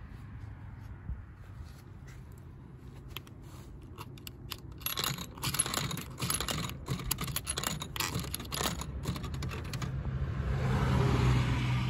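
Coins pushed one after another into a vending machine's coin slot, clicking and rattling as they drop through the coin mechanism in a quick run of clicks for several seconds. Near the end a louder swell of rushing noise rises over a steady low hum.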